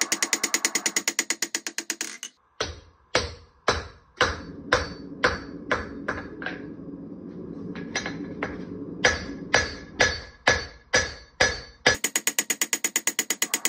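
Hand hammer striking a red-hot wootz steel knife blade on an anvil. A rapid run of blows at first, then separate ringing blows about two a second, then a rapid run again near the end.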